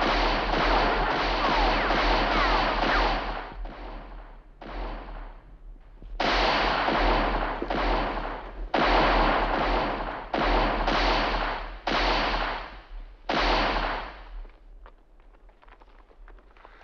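Gunfire: a dense run of overlapping shots for the first three seconds or so, then about eight separate shots a second or two apart, each trailing off in a long echo, until the firing stops about fourteen seconds in.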